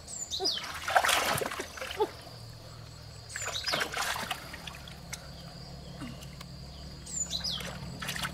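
Splashing and sloshing in shallow pond water, in irregular bursts about a second in, around three and a half seconds, and again near the end, over a low steady hum.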